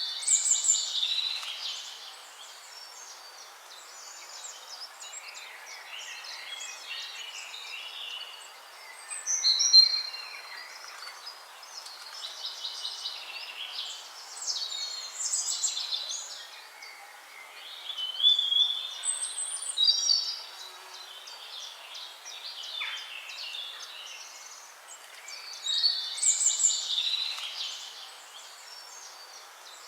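Songbirds singing: bursts of high chirps, whistles and trills every few seconds, several calls overlapping, over a faint steady hiss.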